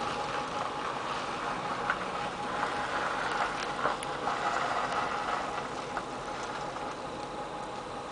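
Steady rushing of floodwater flowing across a road, with a few light clicks.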